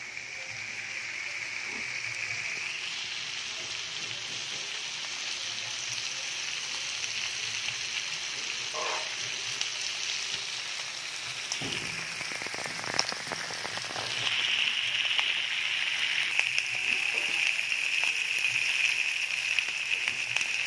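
Beef skin frying in a pot, sizzling steadily, the sizzle growing louder about two-thirds of the way in. A few knocks sound near the middle.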